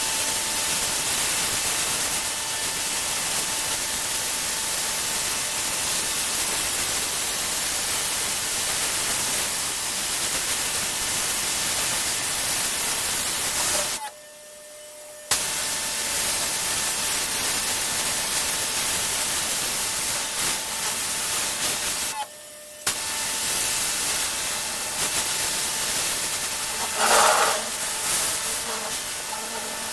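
Pressure washer spraying: a loud, steady hiss of the high-pressure jet with a faint machine hum under it. The spray stops for about a second near the middle and again briefly about two thirds of the way through, then carries on.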